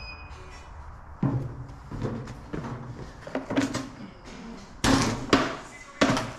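Scrap metal and buckets being handled: a run of separate knocks and clatters. The loudest, about five seconds in, has a bright metallic ring.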